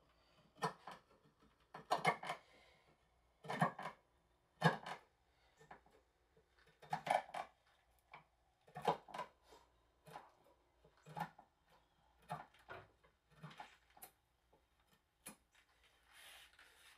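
Wood chisel paring into a wooden block by hand: about a dozen short scraping cuts at uneven intervals.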